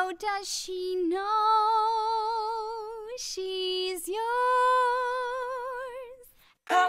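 A woman's solo voice singing long held notes unaccompanied, each with a wide vibrato, stepping up and down between a few pitches, with audible breaths between phrases. The sung line stops a little before the end, and a band comes in just after.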